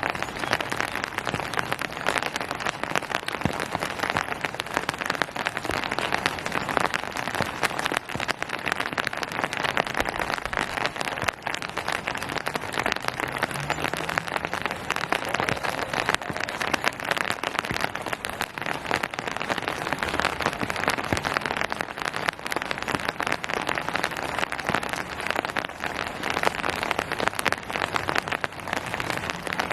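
Steady rain falling, a dense, even patter of many drops striking surfaces.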